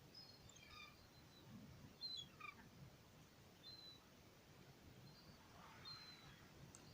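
Faint, distant gulls calling, a few short falling cries, with thin high chirps from small birds between them.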